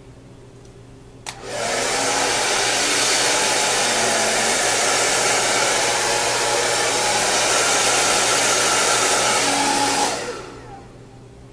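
Handheld hair dryer switched on with a click, blowing steadily and loudly for about eight seconds, then switched off and dying away.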